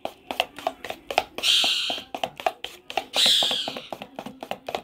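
Spoon beating thick gram-flour batter in a steel bowl: rapid clicking taps of the spoon against the bowl, about four or five a second, with two louder hissing swishes about a second and a half and three seconds in.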